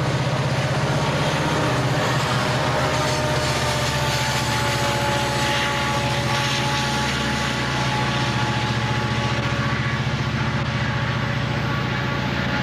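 Two rear helper diesel locomotives pushing at the back of an eastbound Southern Pacific freight upgrade: a heavy, steady diesel engine drone as they pass and move off. A higher tone sags slightly in pitch as they pull away.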